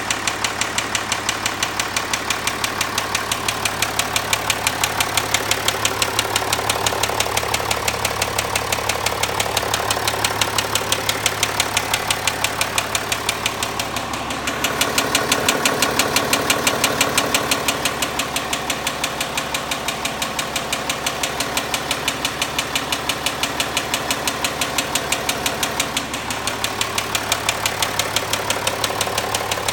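Land Rover Discovery 4 engine running with a steady, regular ticking knock, briefly louder about halfway through. The owner takes the noise for crankshaft failure.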